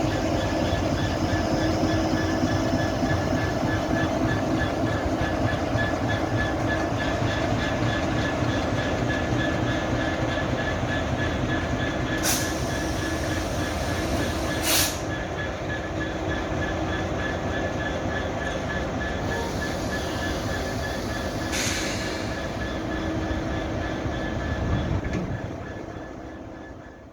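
A train running through a station with a steady loud rumble of wheels on rail, three sharp knocks along the way, fading away near the end as it passes.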